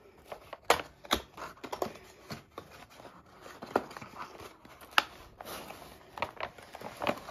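Fingers handling a cardboard model-locomotive box with a clear plastic window: irregular clicks, taps and light scrapes as the end flap is pried open, with a few sharper clicks about a second in and again near five seconds.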